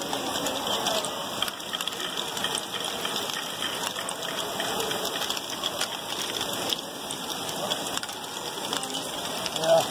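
LEGO Great Ball Contraption modules running: many small plastic balls clattering and rolling through Technic lifts and ramps, with the clicking of motor-driven gears, a dense even patter. One louder knock near the end.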